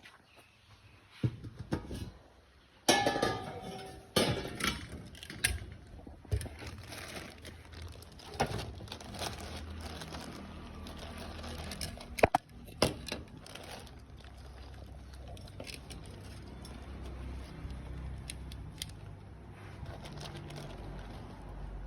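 Dishes and utensils clinking and knocking now and then, busiest in the first few seconds and again around the middle, over a steady low hum.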